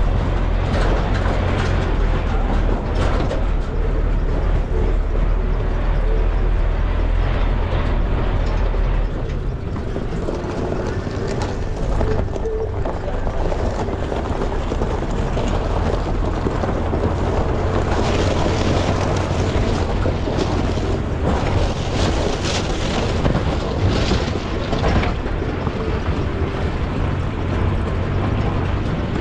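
A four-wheel drive driving along: a steady low engine drone under road and tyre noise, the drone easing about nine seconds in.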